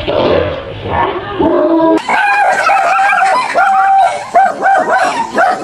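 A dog barking and yelping at a fast pace. The first two seconds are rougher, noisier barks; after that comes a quick string of short, higher yelps.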